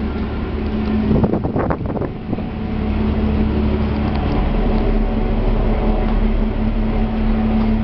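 Steady drone of a passenger ferry's engines heard on board, a held hum over a deep rumble, with a few knocks and clatters a little over a second in.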